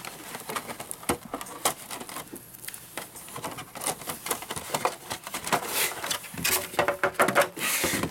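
Hands handling plastic accessory parts in a plastic storage case: a string of light clicks and taps, busier and mixed with rustling in the second half.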